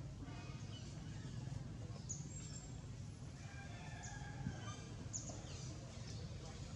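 Birds chirping in short high calls, with a few quick downward-sweeping notes, over a steady low outdoor background hum.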